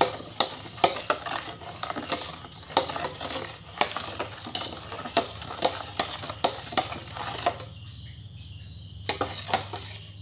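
Metal spoon stirring a runny sugar mixture in a stainless steel bowl, clinking and scraping against the sides in quick irregular strokes. The stirring stops about three-quarters of the way through, with a couple of last taps near the end.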